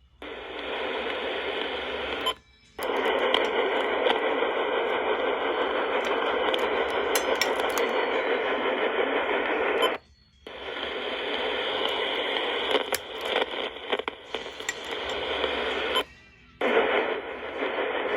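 Radio static: a steady hiss from a radio receiver that cuts out abruptly three times, about two seconds in, about ten seconds in and about sixteen seconds in.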